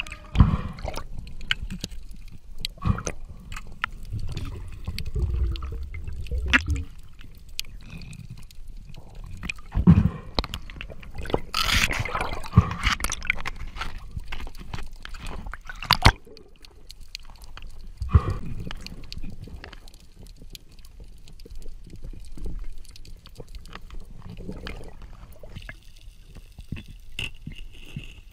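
Underwater sound picked up by a diver's camera: water moving and bubbling, broken by irregular sharp knocks and clicks, with a louder rushing stretch of bubbles about twelve seconds in.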